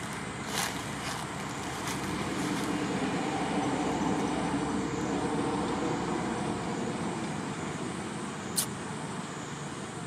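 Steady background noise of distant road traffic, swelling for a few seconds in the middle as a vehicle passes, with two short sharp clicks, one near the start and one near the end.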